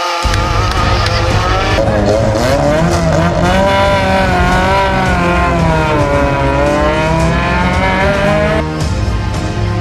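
Rally car engines revving hard, the pitch climbing and dropping, with tyre squeal as the cars are driven at the limit; the sound changes abruptly a few times between shots.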